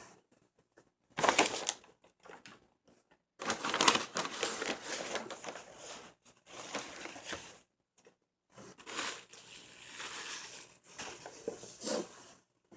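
Close-up burger eating: crinkling and crunching in bursts, from the paper wrapper being handled and the burger being bitten and chewed. There is a short loud burst about a second in, a long stretch from about three and a half seconds, and more after a brief pause.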